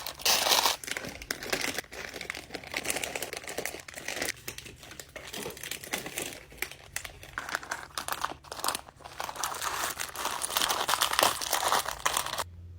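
Snack packaging crinkling and rustling as it is handled during restocking, with dense irregular crackles that cut off suddenly near the end.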